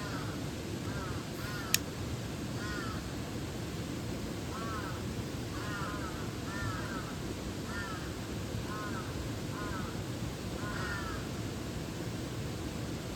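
Steady rush of a mountain stream, with short animal calls repeating above it, singly or in quick pairs, about once a second. A single sharp click just under two seconds in.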